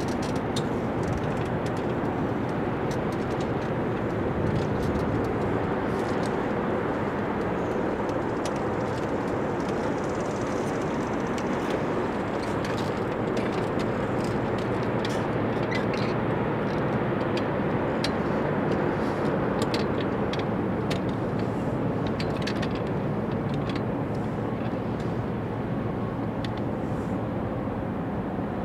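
Steady rumble and hum of a large container ship's engines and machinery as it passes, with scattered faint ticks over the top.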